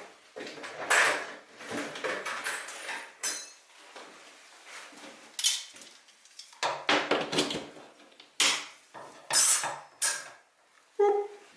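Hard objects, most likely tools, being rummaged through and handled on a workbench: an irregular string of clinks, knocks and rattles.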